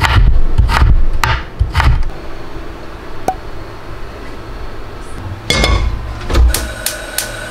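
Chef's knife chopping on a cutting board: about four firm knocks in the first two seconds. Near the end come two more knocks and a few light clicks.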